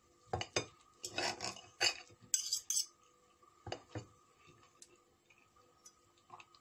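Metal knife and fork clinking and scraping against a ceramic plate while cutting a soft pancake: a run of sharp clicks and short scrapes in the first three seconds, then two more clinks about four seconds in.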